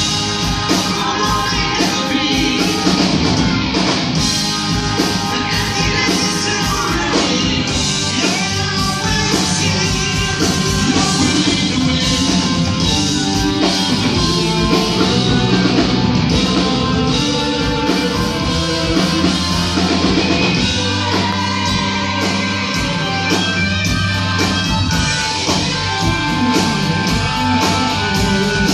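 Live rock band playing a song: electric guitars, keyboards and drum kit, with singing.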